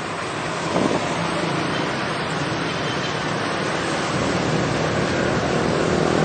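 Steady rush of road traffic passing close by, with wind buffeting the microphone; no horn melody is heard.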